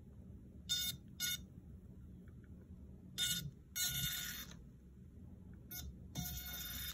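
Tiny electric drive motor of a home-made 1:43-scale RC car giving a high-pitched whine in about six short bursts as the throttle is pulsed, the longest near four seconds in and at the end.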